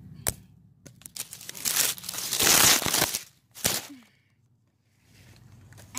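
Dry leaves, twigs and brush crunching and rustling right against a phone's microphone as it is handled and moved, with a sharp click just after the start and a short burst of rustling a little later.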